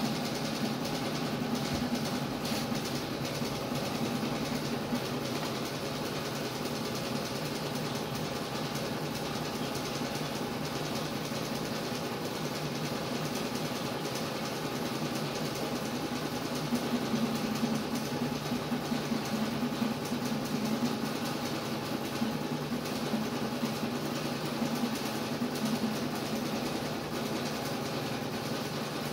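A small electric machine running with a steady low hum, swelling slightly a couple of times.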